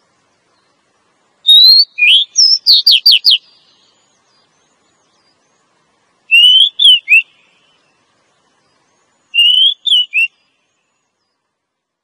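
Female Oriental magpie-robin calling in three bursts of clear whistled notes. The first comes about a second and a half in: a rising whistle followed by a quick run of short falling notes. Two shorter groups of three notes follow, one after a pause of several seconds and another near the end.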